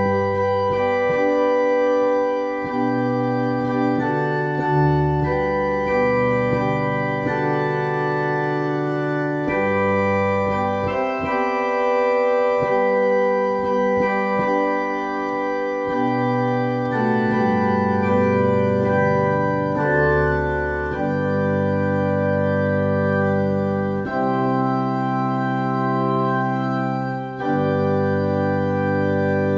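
Organ playing a hymn tune in held four-part chords over a moving bass line, the chords changing every second or two, with a short break between phrases near the end.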